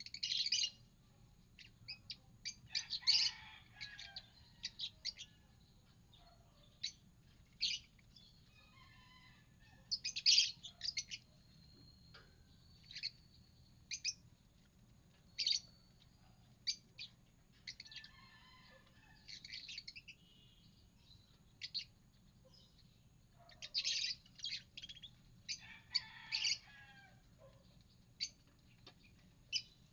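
Pet lovebirds chirping: short, sharp, high chirps in scattered clusters with pauses between them, the loudest clusters about 10 s in and about 24 s in.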